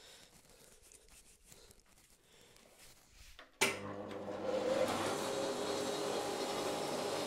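A Rikon 25-010H planer-jointer is switched on about halfway through. Its motor and cutterhead spin up and then run steadily at speed with a hum of several steady tones, with no wood yet being cut. Before it starts there are only faint handling noises.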